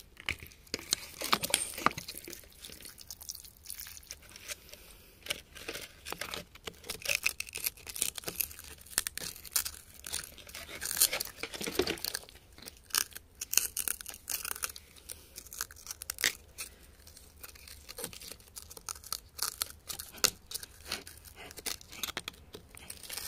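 Metal tool scraping and prying at crumbly clay and rock around an embedded crystal: irregular crunching, scratching and small clicks.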